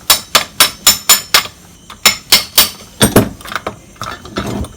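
Sharp metallic taps driving the piston pin out of a Yamaha RXZ piston, struck through a clutch holder used as a drift. The taps come about four a second, six in a row and then three more after a short pause, followed by a duller knock and a scrape.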